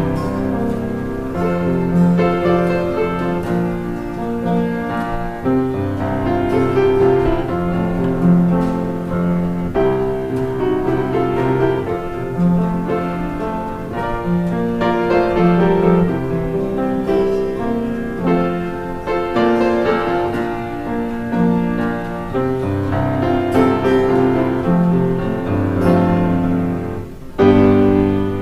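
Piano playing slow offertory music in held chords, with a short break near the end.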